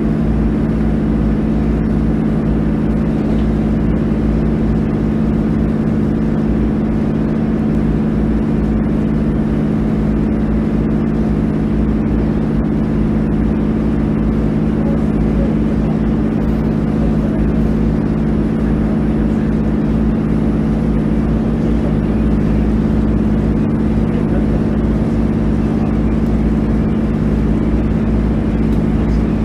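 GV-E400 series diesel-electric railcar running at a steady speed: its diesel generator engine drones at a constant pitch over the rumble of the running gear.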